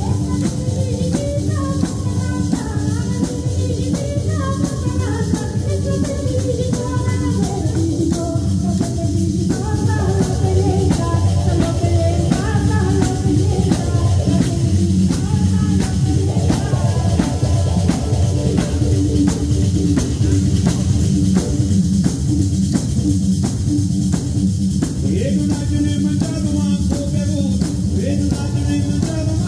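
Live pizzica salentina: several tamburelli (jingled frame drums) beating a steady driving rhythm together, with a woman singing the melody over them and a guitar accompanying.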